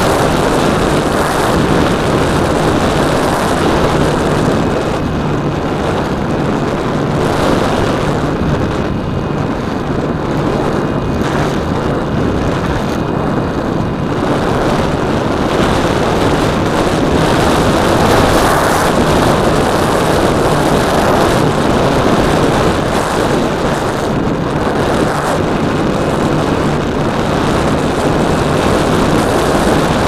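E-flite Apprentice RC trainer plane in flight, heard from its onboard camera: the electric motor and propeller running steadily under heavy wind rush over the microphone. A faint high motor whine shows through for several seconds in the middle.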